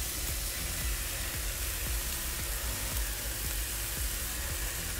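Balls of ground beef sizzling on a hot ceramic flat-top griddle, a steady hiss, with background music underneath.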